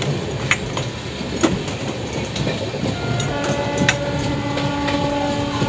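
Moving passenger train: a steady rumble of the coaches on the track, with occasional sharp clicks of wheels over rail joints. About halfway through, a steady pitched tone comes in and holds.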